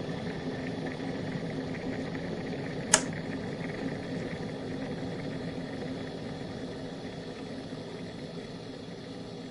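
Kettle boiling, a steady rumbling hiss of water at the boil. A single sharp click comes about three seconds in, after which the boiling slowly dies down.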